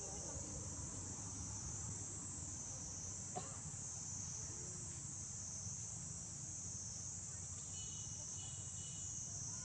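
Insect chorus, a steady high-pitched buzz that wavers slowly, over a low rumble, with a single click about three and a half seconds in.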